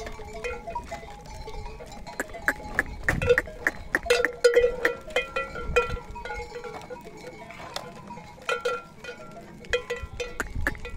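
Bells worn by a large herd of goats clanking and ringing irregularly as the goats walk along.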